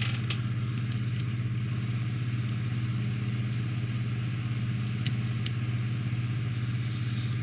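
A steady low hum, with a few light clicks of plastic model parts being pressed together: three in the first second and a half, two more about five seconds in.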